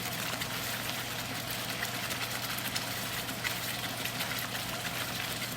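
Ketchup-and-chicken-broth sauce simmering and sizzling in a pan: a steady hiss with fine crackles, over a steady low hum.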